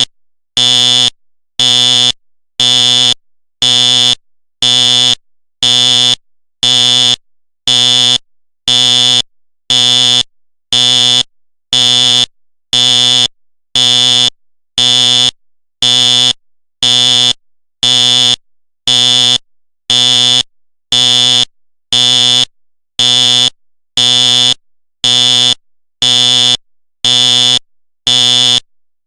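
Simplex fire alarm horn sounding on code pulse: a loud, harsh buzzing blast about once a second, each blast about half a second long, in an even on-off rhythm.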